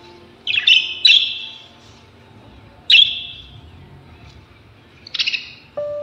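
Pet parrots in a cage chirping: four short, loud, high calls, the first two close together within the first second and a half, then one about three seconds in and one about five seconds in. Faint background music runs under them.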